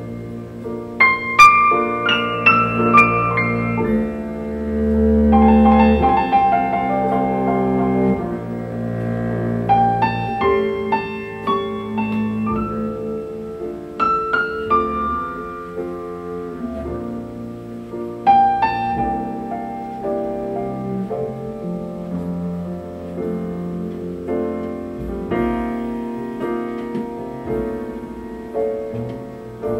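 Recorded piano music, with chords, struck melody notes and a low bass line, played back through a 6V6 single-ended valve amplifier and horn loudspeakers.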